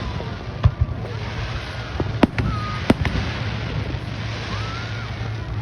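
Fireworks going off: several sharp bangs a second or so apart, about a second in and again around two to three seconds in, over a steady background rumble.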